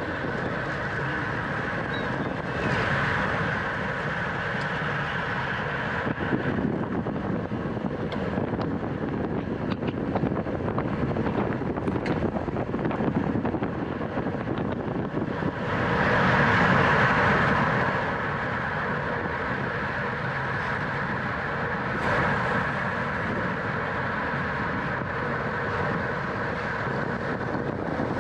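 Wind rushing over the microphone of a camera riding on a racing bicycle at speed, with steady road noise. The rush swells louder for a couple of seconds about sixteen seconds in.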